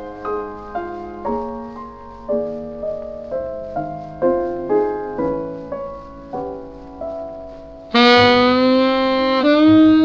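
Jazz ballad recording: a piano plays an introduction of struck chords, then about eight seconds in a tenor saxophone enters loudly with a long held note, moving to a second note with a wavering vibrato near the end.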